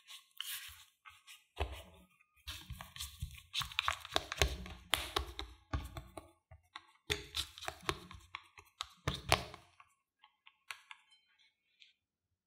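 Silicone spatula mixing mashed potato and cornstarch in a glass bowl: uneven scraping and squishing strokes with light knocks of the spatula against the glass. The strokes stop about ten seconds in, leaving only a few faint ticks.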